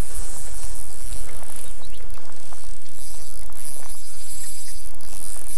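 Insects chirring in a high band that swells and fades, over the steady rush of a small riffled river.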